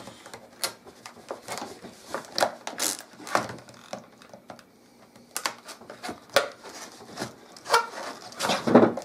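Folding knife cutting and prying at rigid plastic clamshell packaging: irregular scrapes, clicks and crackles of the hard plastic.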